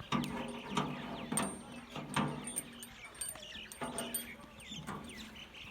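Several short scraping strokes of a hoof-trimming tool on a horse's hoof, about one a second, with birds chirping in the background.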